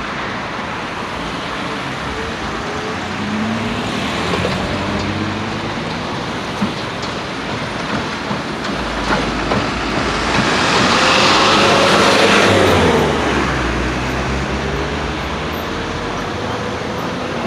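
Motor vehicle engine and road noise, with engine tones rising and falling; it swells to its loudest about eleven seconds in, as if a vehicle passes close by, then settles back.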